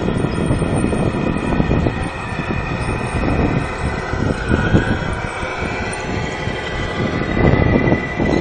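Tamiya Scania R470 radio-controlled model truck with a loaded low-loader trailer rolling over coarse asphalt. Its wheels and drivetrain make a rough, steady rumble with a faint wavering whine, louder as it comes close near the end.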